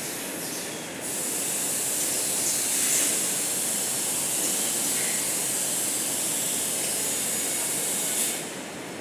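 Toilet paper converting machinery running steadily, a continuous mechanical din with a strong high hiss.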